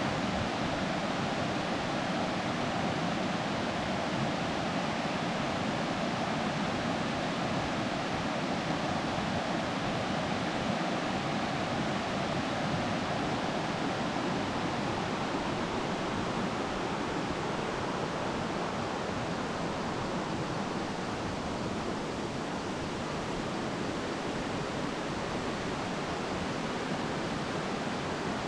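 Steady rushing of a fast-flowing river in flood, an even roar of moving water that holds level throughout.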